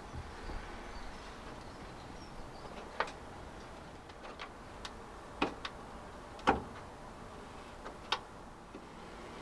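A few sharp clicks and light knocks, spaced a second or two apart, as pieces of a cracked plastic car bumper are handled and fitted together.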